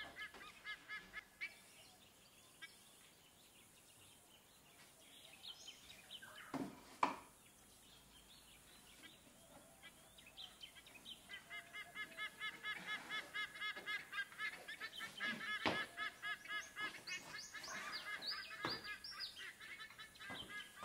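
Farmyard fowl calling: scattered calls at first, then from about halfway a fast run of repeated calls, about six a second, with a few higher rising calls near the end. Two sharper, louder sounds stand out about a third of the way in.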